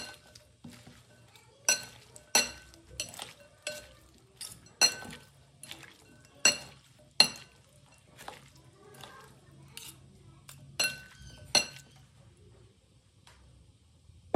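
Metal serving utensils clinking against a glass bowl while tossing sliced vegetables, with about twenty irregular strikes, each followed by a brief ring from the glass. The clinking stops a couple of seconds before the end.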